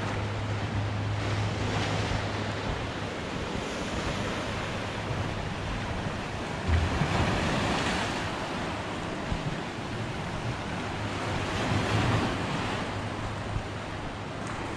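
Sea surf washing in, swelling and ebbing every few seconds, with wind buffeting the microphone.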